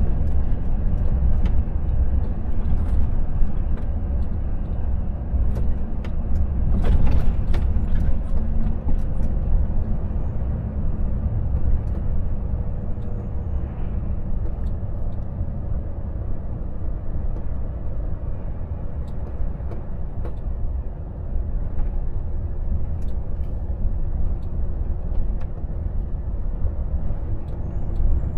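Volvo FH truck on the move: a steady diesel engine drone and road rumble, with a brief louder, noisier swell about seven seconds in.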